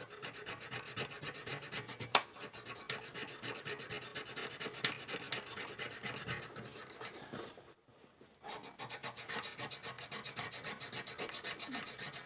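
Rapid rubbing and scrubbing strokes on a metal part of a 1940s Ensign Ful-Vue camera being cleaned, with a sharp click about two seconds in and a short pause near the middle.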